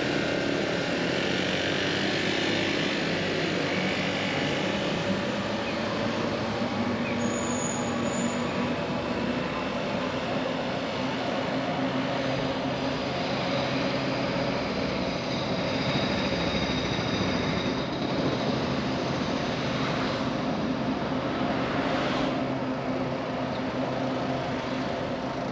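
Street traffic at an intersection: car and motor-scooter engines running, with tyre noise, as a steady mixed hum.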